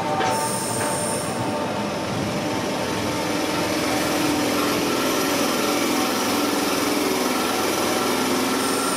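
Southeastern electric multiple unit pulling out of the platform, its wheels and motors running past with a steady rumble along the rails.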